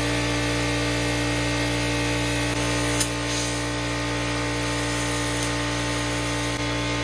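Plasma cutter torch running on 60 PSI compressed air: a steady hiss of air with a steady hum, and one sharp click about three seconds in. The owner traces the cutter's failure to the torch arcing out inside itself.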